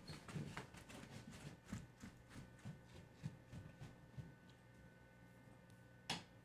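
Near silence: room tone with a steady low electrical hum and a scattering of faint small clicks and ticks, with one slightly louder click near the end.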